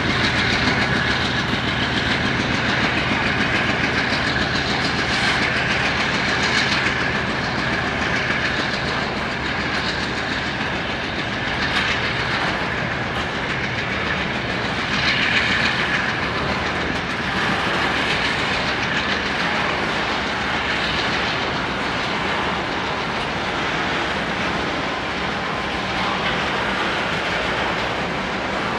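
Freight train hopper and tank wagons rolling past, wheels clattering steadily over the rail joints.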